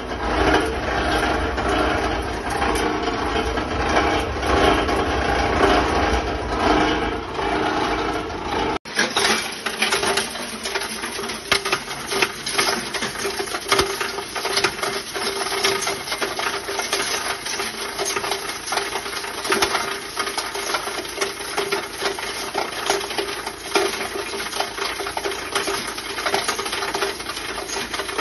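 Multi-material shredder with a 15 hp motor running while it shreds fabric, with a heavy low rumble. About nine seconds in the sound breaks off abruptly and carries on with less rumble and a dense, rapid rattling and clicking.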